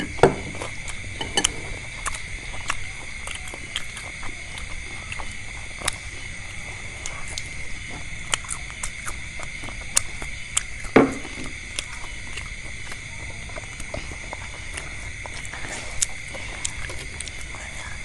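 People eating fried meatballs and vegetables: many irregular small clicks and smacks of chewing and of utensils, with a few louder knocks, over a steady thin high whine.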